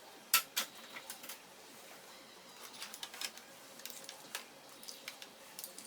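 Irregular sharp clicks and taps of small plastic and metal laptop parts being handled, the loudest about a third of a second in.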